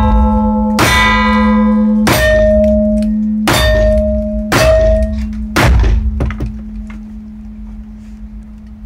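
Five revolver shots about a second apart, each followed by the steel targets ringing on with a long clang. After the last shot come only faint small clicks and handling noises.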